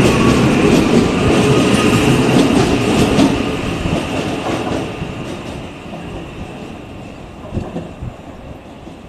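Auckland AM class electric multiple-unit train pulling away along the platform and running off into the distance, with a steady high whine over the running noise, fading away as it goes.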